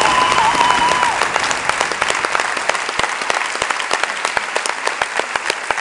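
Theatre audience and cast applauding, many hands clapping, with a high held tone over it for about the first second. The clapping slowly thins and grows quieter.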